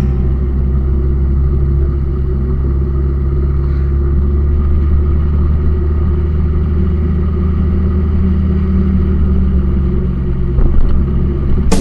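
A vehicle engine running steadily, heard as a low, even drone with little change in pitch.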